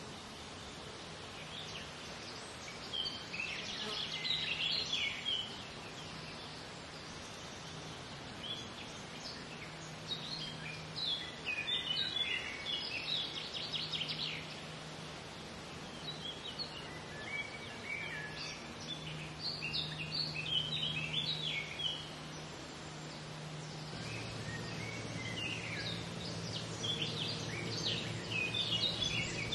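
Wild birds singing in several bouts of quick chirps and trills, over a steady low hum that a second, lower hum joins about 24 seconds in.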